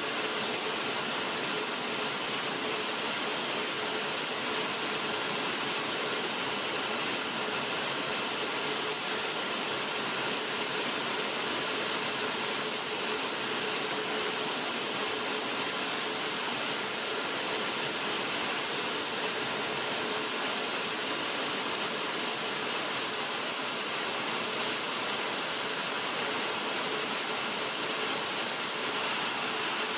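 F-22 Raptor's jet engines idling: a steady rush of noise with a high, constant turbine whine that never changes.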